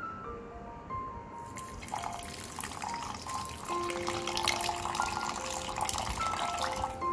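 Milk pouring from a glass jug into a stainless steel mixer jar, a steady splashing stream that starts about a second and a half in. Soft background music with single piano-like notes plays underneath.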